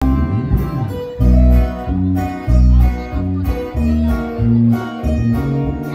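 Live band playing an instrumental passage: strummed acoustic guitars over a heavy electric bass line and drums, the bass notes swelling in strong surges every second or so.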